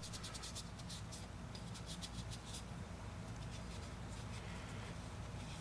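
Faint rubbing and scratching of a cotton cleaning patch wiped through a Ruger SR9c pistol slide to soak up leftover solvent, quick scratchy strokes over the first few seconds, over a steady low hum.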